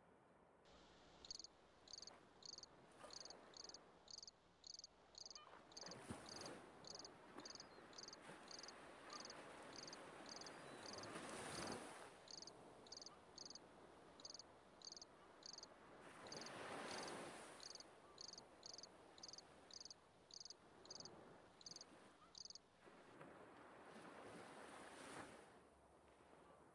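Faint insect chirping: a high chirp repeated evenly about three times a second, stopping a few seconds before the end. Over a low background, slow swells of rushing noise rise and fall every five or six seconds.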